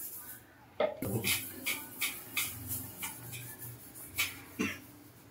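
Steel wool scrubber rubbing over a plastic tap and wall tiles in short, scratchy strokes, about three a second, fading near the end.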